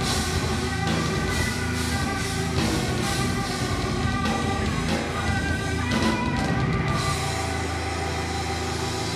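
A metal band playing live: distorted electric guitars over a drum kit with crashing cymbals. About seven seconds in the drums stop and a low guitar chord is left ringing.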